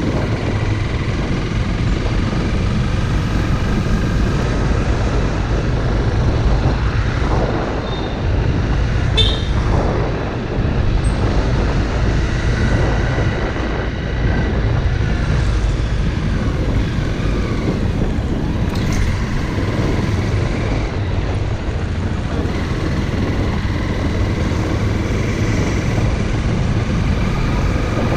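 Honda CRF dirt bike being ridden, its engine and road noise running under a steady low rumble throughout. There is a brief high chirp about nine seconds in.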